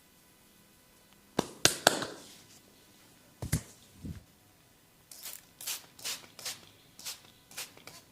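A barber's head massage: sharp cracking and clicking against the head, first three quick cracks, then two duller knocks, then a regular run of crisp snaps about every half second.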